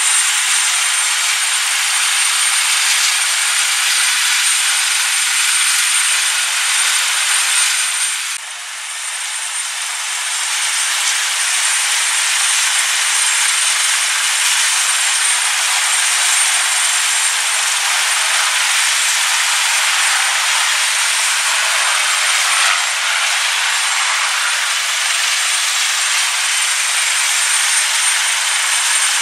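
Airbus Helicopters H225M helicopters running on a ship's flight deck: the steady rush of turning rotors and twin turboshaft engines, with a thin, high, steady turbine whine. The noise drops briefly about eight seconds in and builds back up.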